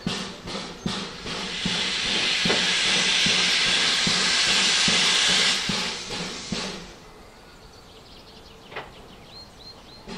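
Ivatt Class 2MT 2-6-2T steam tank locomotive starting away with its train: a loud, steady hiss of steam with slow, regular chuffs under it. The hiss cuts off about six and a half seconds in, leaving the engine much quieter.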